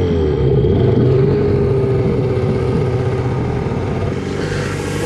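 Small boat's outboard motor running steadily under way, its pitch easing down slightly in the first second.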